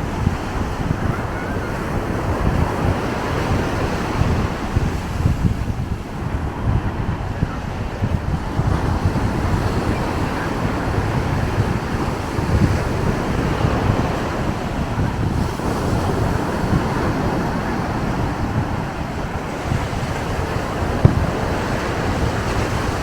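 Ocean surf washing on the beach under steady wind buffeting the microphone with a low rumble. A single sharp pop stands out near the end.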